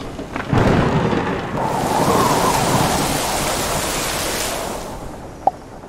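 A thunderstorm: thunder breaks in suddenly about half a second in and rumbles under a heavy rain downpour hissing, all fading away near the end.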